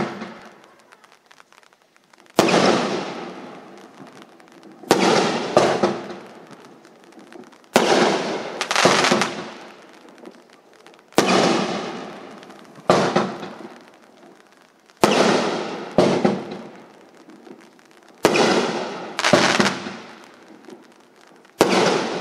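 A 12-shot consumer aerial fireworks cake (Winda 'Reach for the Sky' P5397A) firing its shells one at a time, about every three seconds. Each shot is a sharp bang, mostly followed by a second report about a second later, then a fading tail.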